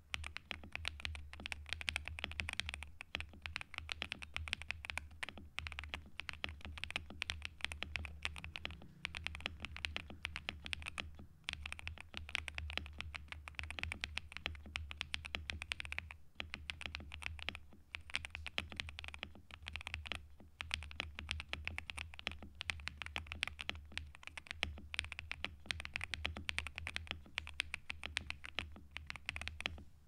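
Fast, continuous typing on a YUNZII B75 gasket-mount mechanical keyboard with LEOBOG Graywood V3 linear switches, a PC plate and ABS double-shot keycaps: a rapid stream of key clacks with a few brief pauses.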